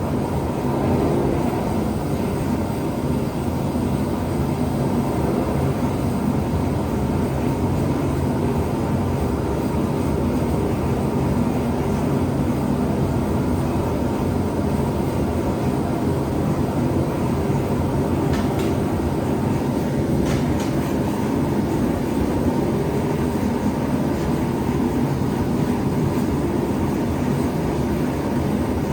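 Gas forge burners running with a steady roar while a blade heats inside. A couple of faint clicks come past the middle.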